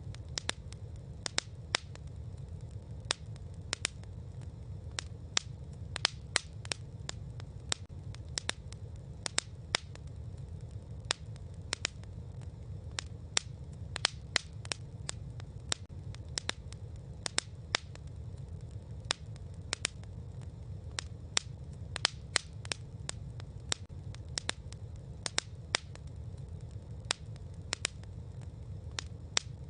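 Campfire crackling: irregular sharp pops, about three a second, over a steady low rumble of the burning fire.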